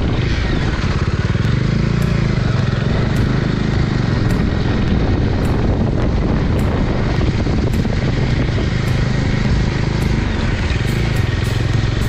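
Bajaj Dominar 400's single-cylinder engine running steadily under way, a dense low rumble mixed with wind rush on the camera microphone.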